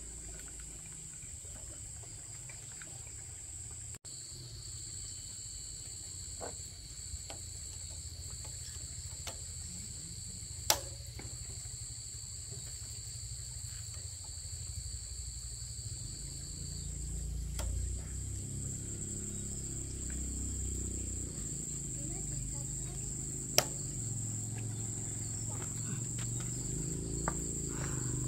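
Insects calling in a steady high-pitched drone over a low hum that grows louder past the middle, with two sharp clicks about thirteen seconds apart.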